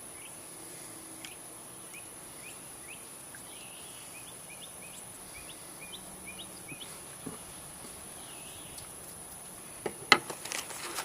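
A bird calling outdoors in a quick series of short rising chirps, over a steady high hiss. Near the end come a few loud, sharp clicks and knocks from something being handled close to the microphone.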